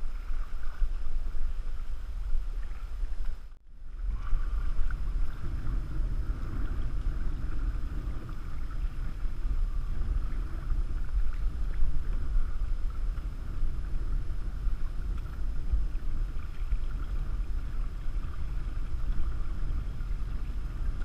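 Wind buffeting the microphone with a steady low rumble, over water splashing and lapping against an aluminium canoe as it is paddled through choppy water. The sound drops out briefly about three and a half seconds in.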